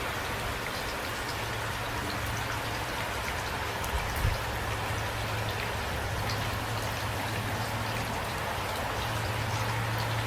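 Steady rainfall, an even hiss with scattered individual drop ticks and a steady low hum underneath; a brief low thump about four seconds in.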